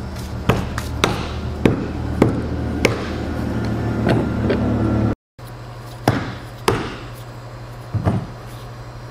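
A series of sharp metallic clinks and knocks as the pump's metal impeller is handled and pushed onto the motor shaft, seating against the new mechanical seal and compressing it.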